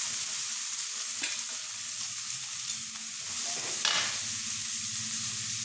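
Chopped onions sizzling as they hit hot oil in a metal kadai, with a couple of short scrapes of a slotted metal ladle stirring them.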